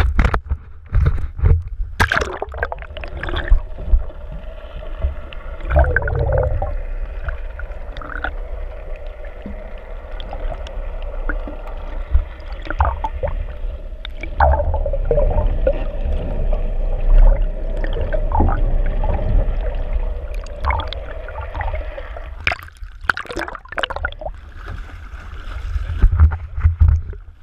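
Underwater sound from a camera held below the sea surface: muffled gurgling and water rushing past the housing over a steady low rumble and a steady hum, with splashing about two seconds in and again near the end as the camera breaks the surface.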